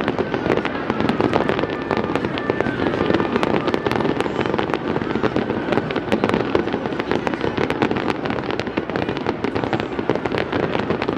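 Fireworks going off in a dense, continuous barrage of many overlapping bangs and crackles.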